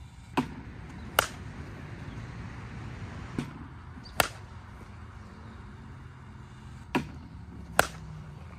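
Three pitch-and-hit cycles: each time a soft-toss machine launches a softball with a short knock, and under a second later a Monsta Torch Hulk Platinum slowpitch bat hits it with a sharp, louder crack.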